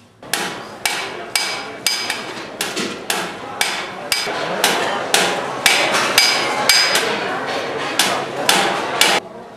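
A coppersmith's hand hammer beats a large metal tray held over a stake, about two blows a second. Each blow rings with a bright metallic tone. The hammering stops abruptly near the end.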